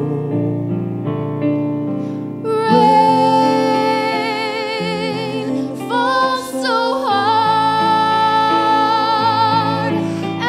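Yamaha CP stage piano playing chords, joined about two and a half seconds in by a woman singing long held notes with vibrato.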